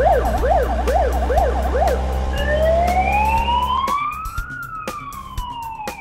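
Police car siren on a fast yelp, warbling up and down about two to three times a second, that switches about two seconds in to a slow wail: one long rise over two seconds, then a slow fall. A low steady hum under the yelp stops about four seconds in.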